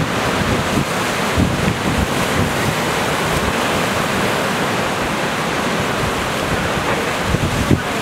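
Rough sea surf breaking and washing in, a steady roar of waves. Wind buffets the microphone in low gusts, strongest about a second and a half in and again near the end.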